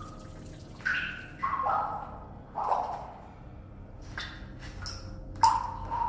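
Water splashing and plopping in the cave's shallow stream: about six separate hollow plops, each with a short ringing tone, the loudest near the end, as of feet stepping through the water.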